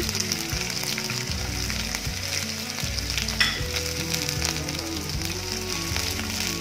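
Chopped onion sizzling steadily as it fries in hot mustard oil in a nonstick kadai, with a spatula stirring it near the end.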